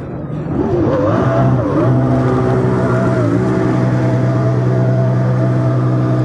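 Jet ski engine revving up, its pitch rising and wavering for about the first two seconds. It then runs at a steady pitch close by.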